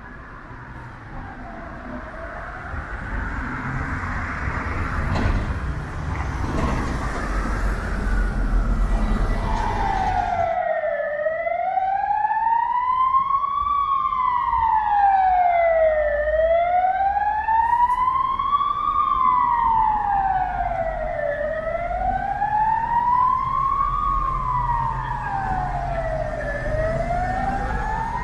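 Emergency vehicle siren wailing, its pitch sliding slowly up and down about every five seconds, over low traffic rumble. It grows louder and clearer about ten seconds in.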